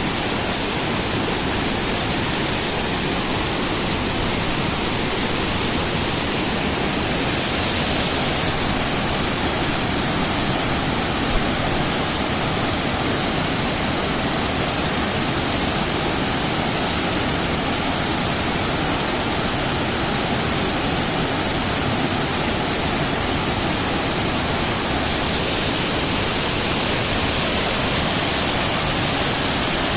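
Rushing water from a fast-flowing stream or waterfall, a loud, steady roar. There is one brief knock about eleven seconds in.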